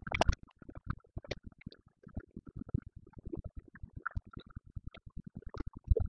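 A fast, irregular patter of short clicks and knocks from a fast-forwarded laptop recording, with louder thumps at the start and again near the end as the laptop is handled.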